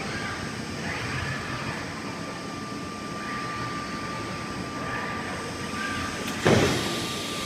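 Industrial palletizing robots and roller conveyors running, a steady machine hum with a thin steady tone and short rising servo whines as the robot arms swing. About six and a half seconds in, as a robot sets a door panel down, a sudden loud burst stands out and fades within half a second.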